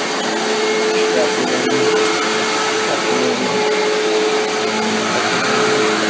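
Vacuum cleaner running steadily while being pushed over carpet: a constant rush of air with a steady motor tone underneath.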